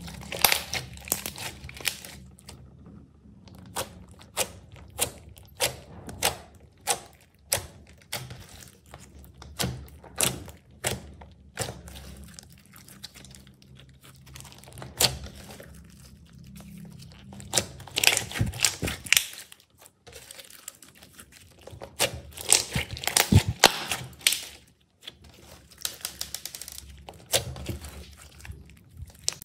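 Slime being pressed and folded by hand, giving a string of sharp crackles and pops that come thickest about two-thirds of the way through.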